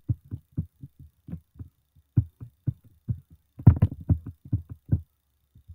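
A run of short, dull, irregular knocks, about two or three a second, with a denser cluster about two-thirds of the way in: taps and clicks on a laptop's keys and trackpad.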